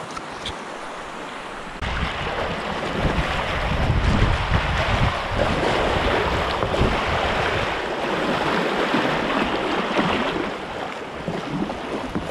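River whitewater rushing and churning close to the microphone, with wind buffeting it. The noise jumps up sharply about two seconds in and stays loud.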